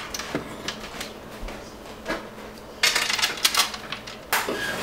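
A large kitchen knife cutting through flaky, baked phyllo pastry and beef tenderloin on a wooden cutting board: scattered clicks and crackles of the pastry, a denser crunching stretch about three seconds in, and a sharp knock near the end.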